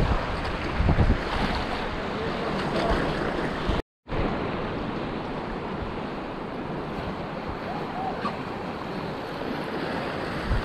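Whitewater of the Upper Salt River at high flow (about 1600 cfs) rushing and splashing around a packraft, with wind hitting the microphone as low thumps in the first second or so. The sound cuts out completely for a moment about four seconds in.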